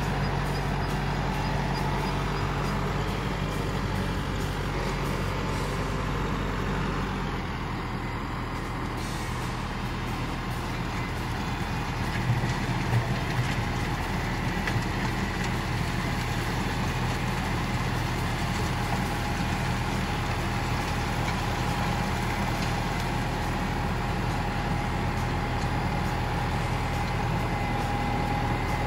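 Kubota SL600H tractor's diesel engine running steadily under way, its low note shifting about seven or eight seconds in, with a few brief knocks a few seconds later.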